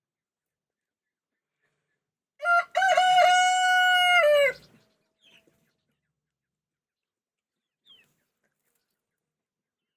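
A rooster crowing once: a few short broken notes, then a long held call that drops in pitch at the end.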